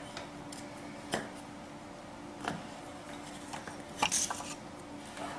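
Pine bow-drill spindle and fireboard being handled and set in place: a few scattered taps and scrapes, the loudest about four seconds in, over a faint steady hum.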